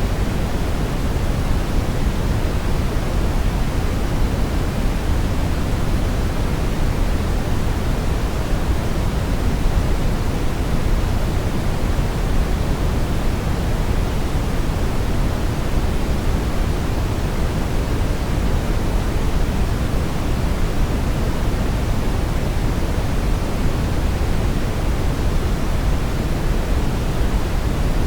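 Steady, unbroken brown noise: an even, deep rushing hiss weighted to the low end, with no changes or events.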